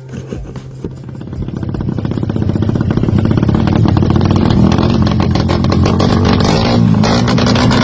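Motorcycle engine running hard at high revs, growing louder over the first three seconds or so, then holding steady and loud.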